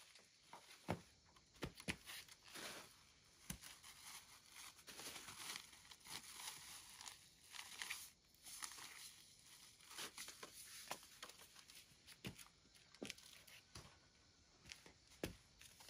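Faint rustling and crinkling with scattered light clicks and knocks, irregular throughout.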